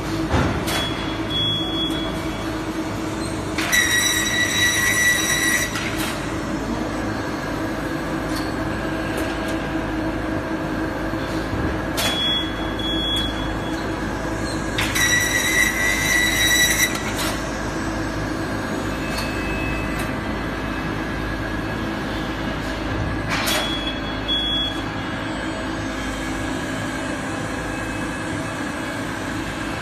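MgO board production line machinery running with a steady mechanical hum. Twice it gives a loud, high-pitched metallic squeal lasting about two seconds, with a few sharp clicks in between.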